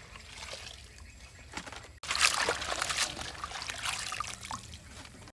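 Sliced banana flower being washed by hand in a steel basin of water: water splashing and dribbling as handfuls are squeezed and lifted out, louder from about two seconds in.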